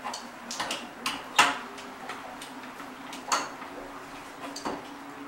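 Irregular metallic clicks and knocks of a wrench working a threaded water-line fitting on top of an electric tank water heater, loosened so that air can get in and the tank can drain. A faint steady hum runs underneath.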